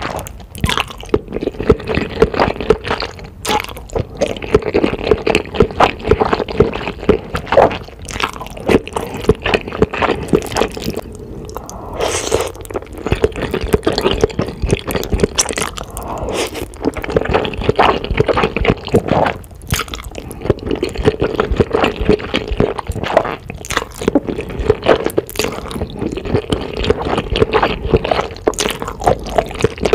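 Close-miked slurping and chewing of black bean sauce noodles (jjajangmyeon): a dense, continuous stream of wet, sticky smacks and clicks.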